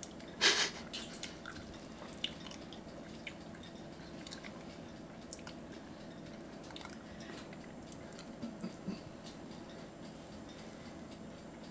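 A person chewing a mouthful of deep-fried Brussels sprout, with soft, scattered wet clicks from the mouth. There is one brief, louder noise about half a second in.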